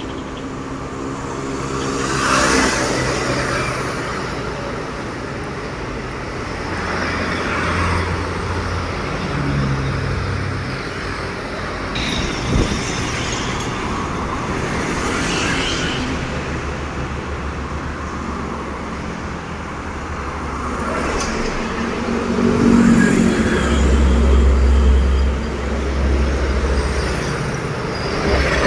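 Road traffic passing close by: vehicles go past one after another, each rising and fading away. A heavy truck's engine drones low and loudest in the last few seconds.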